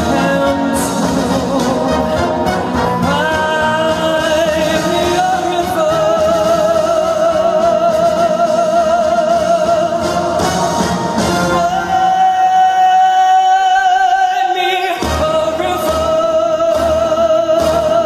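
A male singer singing live into a microphone over backing music, holding long notes with a wide vibrato. About twelve seconds in the accompaniment drops away for about three seconds under one sustained high note, then comes back in.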